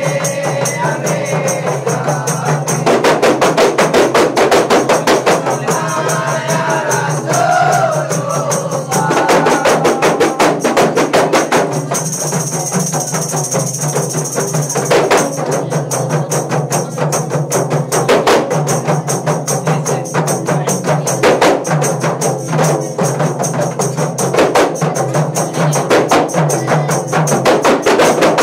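Kompang frame drums played in a fast, steady interlocking beat. Voices sing or chant over the drumming near the start and again about a third of the way in.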